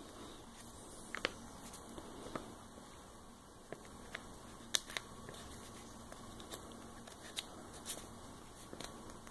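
Fingers rubbing and pressing a vinyl decal's transfer paper onto a stand mixer's body: faint papery rustling with a handful of sharp crackles and ticks.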